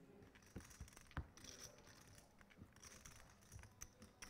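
Near silence: quiet room tone with scattered faint clicks of poker chips being handled at the table, one a little sharper about a second in.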